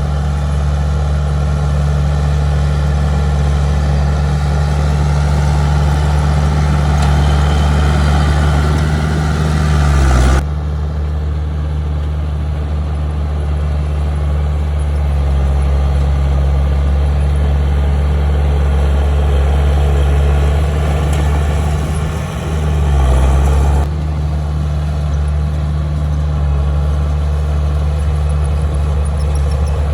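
Heavy diesel engine of earthmoving equipment running steadily at low pitch. The sound changes abruptly twice, about ten and twenty-four seconds in, and the engine note briefly dips and rises just before the second change.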